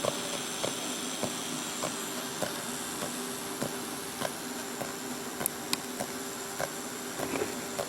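Steady hiss and low hum from the station's off-air FM signal, with a soft click repeating about every 0.6 seconds: the same interference noise that stays on the air after the mixer cable change.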